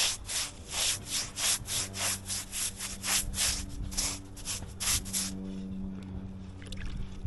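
Quick back-and-forth rubbing strokes on a surface, about three a second, like hand sanding or scrubbing during the repair, stopping about five seconds in. A faint steady low hum runs underneath.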